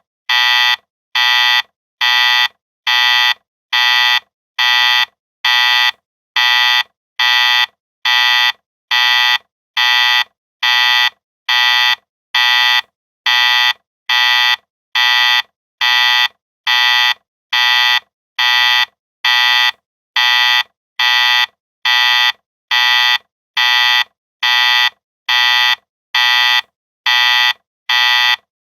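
Electronic factory warning alarm buzzer beeping: harsh, buzzy tones of about half a second each, repeating evenly a little more than once a second.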